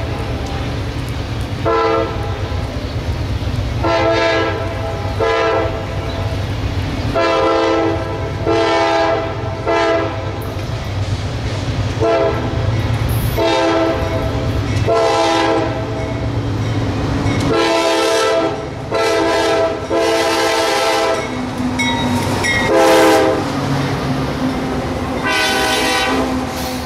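A CSX freight locomotive's air horn sounds a long series of blasts, some long and some short, for the grade crossing, over the low rumble of its diesel engines. The locomotive passes near the end, and empty covered hopper cars start rolling by.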